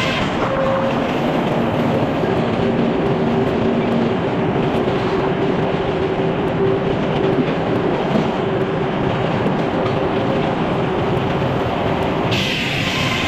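Portable sawmill running steadily as it cuts a log, a constant mechanical drone with a few held tones. A brighter, higher sound joins about twelve seconds in.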